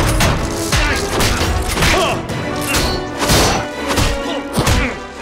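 Action-movie fight sound effects: a series of heavy punches and crashing impacts over a loud orchestral film score.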